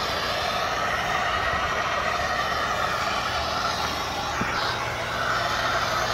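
Handheld MAG-Torch gas torch burning with a steady hiss as its flame heats the wheel-bearing housing of a knuckle so the metal expands to take a frozen bearing.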